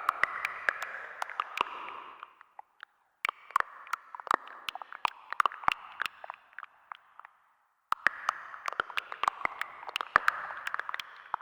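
Synthesizer sound effect: a crackling, gurgling noise texture full of sharp clicks, in stretches of a few seconds that stop briefly twice.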